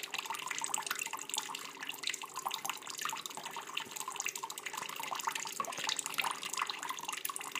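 Thin stream of water running from a kitchen mixer tap and trickling, splashing into a stainless steel sink, steady and unbroken.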